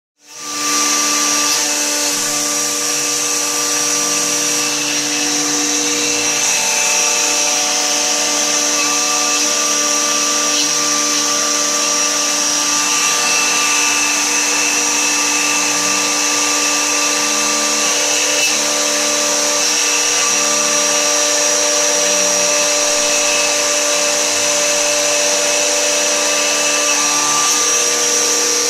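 CNC router spindle running with a steady high whine as its bit mills 18 mm MDF, over a constant hiss of cutting.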